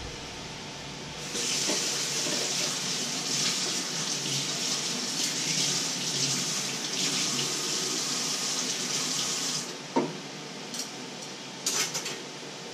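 Kitchen tap running steadily into a steel sink for about eight seconds, then turned off. A sharp knock follows, then a few short clinks near the end.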